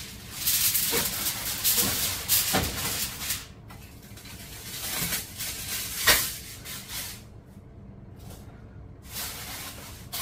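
Aluminium foil crinkling as it is pulled and pressed over a roasting pan to cover the chicken. There is a sharp knock about six seconds in.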